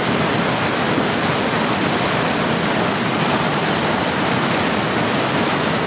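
Creek in flood, its swollen water rushing loud and steady without a break.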